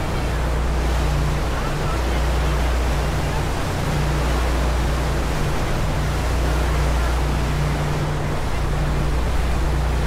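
A passenger ferry's engines running steadily with a deep hum, under the constant rush of the wake churning behind the stern.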